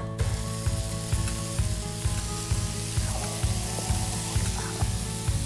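Bacon strips sizzling on a hot steel plancha over a wood fire, a steady hiss, under background music with a regular bass beat.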